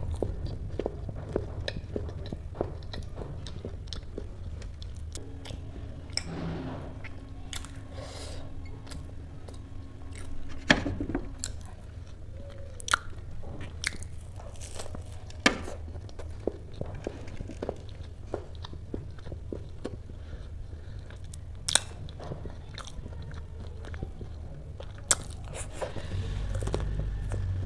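Close-miked chewing of a fried kachori, with sharp crunches and mouth clicks at irregular intervals, a few of them louder, over a low steady hum.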